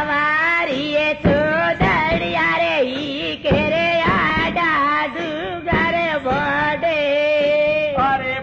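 A voice singing a melody with musical accompaniment, holding long notes and bending them in wavering ornaments.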